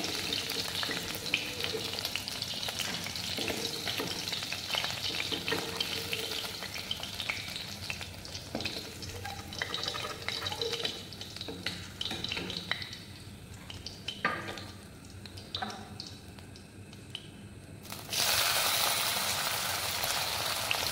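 Hot oil sizzling in a steel kadai as pieces of fried fish are lifted out, with a steel ladle scraping and clinking against the pan. About eighteen seconds in, chopped onions are tipped into the oil and the sizzle jumps suddenly louder.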